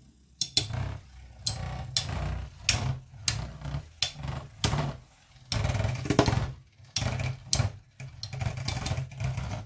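Hades Kerbecs Metal Fight Beyblade and an opposing Beyblade spinning and battling in a plastic stadium. A low whirring rumble of the tops running on the plastic floor is broken by sharp clacks as they collide, roughly one or two a second, with a longer run of clashing about halfway through.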